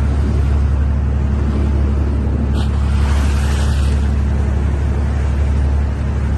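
Fishing boat's engine running steadily with a low drone, under the rush of water along the moving bow. A brief brighter hiss of splashing spray comes about two and a half seconds in and lasts about a second and a half.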